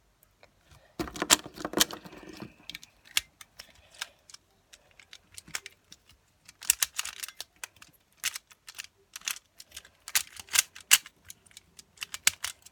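Pyraminx puzzle being turned fast in a timed speed solve: rapid plastic clicking and clacking in irregular bursts.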